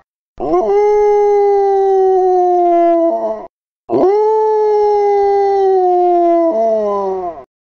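A dog howling: two long howls, each about three seconds, rising sharply at the start, held and slowly sagging in pitch, then dropping off at the end.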